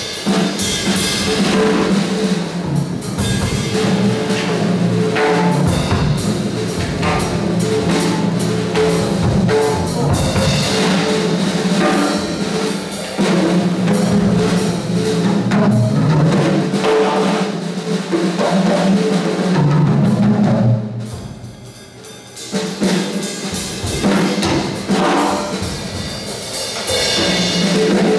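Drum kit solo in a jazz tune: dense, fast strikes on snare, toms, bass drum and cymbals. About three-quarters of the way through the playing drops away briefly, then picks up again.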